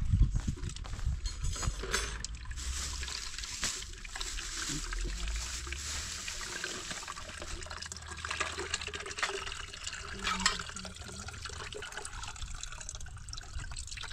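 Water trickling steadily, with a few light knocks.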